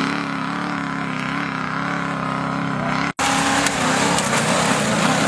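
Range Rover Classic off-roader's engine running under load as it climbs a steep, loose dirt slope, a steady engine note. The sound cuts out for an instant about three seconds in and returns with more rough, gritty noise around the engine.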